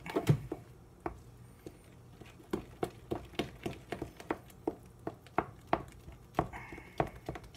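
A utensil knocking and clicking against a mixing bowl as pancake batter is stirred: one louder knock at the start, then after a short lull a steady run of sharp clicks at about three a second.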